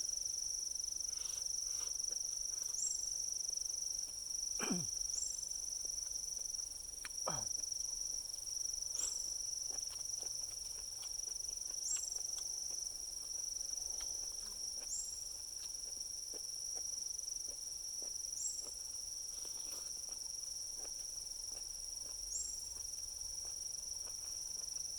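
Steady, high-pitched insect chorus of crickets, with a short rising chirp every few seconds. Two long falling whistles come about five and seven seconds in, and faint clicks are scattered throughout.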